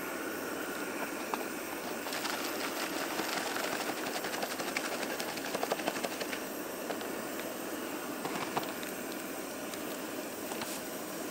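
Steady rushing hiss of a propane camp-cooking burner, with a few seconds of light crackling and clicks in the middle.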